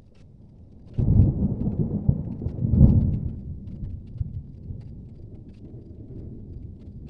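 Thunder: a sudden crack about a second in, rolling into a low rumble with a second loud peak near three seconds, then slowly dying away.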